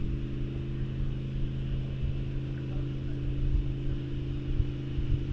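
An engine running steadily, a constant low hum that holds one pitch throughout, over an uneven low rumble.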